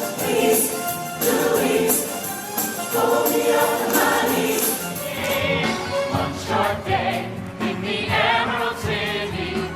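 Broadway show chorus singing a full ensemble number with instrumental accompaniment. Sharp percussion strikes mark the first half, and the voices come to the fore with a wavering vibrato from about five seconds in.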